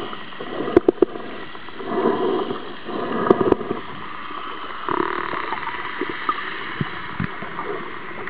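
Underwater sound: water gurgling and bubbling in swells, with a few sharp clicks scattered through.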